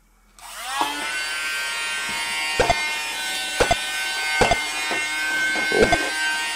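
Small battery-driven hover fan inside a toy air-hockey puck spinning up with a rising whine about a third of a second in, then running as a steady buzzing whine. Hard plastic pushers hit the puck with several sharp clacks.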